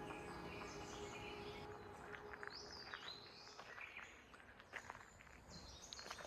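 Faint birdsong in a forest: short high chirps and trills over quiet outdoor background noise, with a few soft clicks toward the middle and end.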